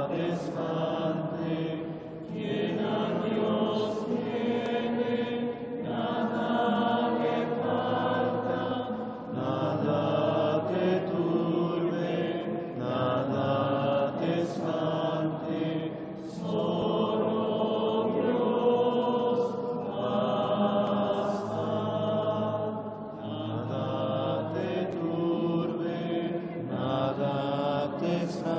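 A congregation singing a slow, repetitive Taizé chant together, phrase after phrase, with short breaks for breath every few seconds.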